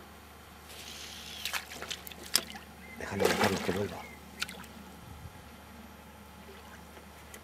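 Water splashing and trickling at the surface, loudest in a short burst about three seconds in, with a few sharp clicks before and after.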